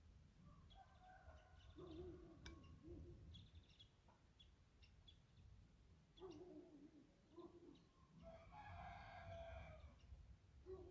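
Faint rooster crow of about a second and a half near the end, with a few short, faint clucks and bird calls earlier.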